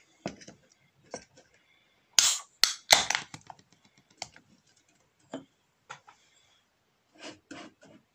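A beer can and glass being handled on a table: scattered light clicks and knocks, the loudest a cluster of sharp cracks about two to three seconds in, fitting the can's ring pull being opened before pouring.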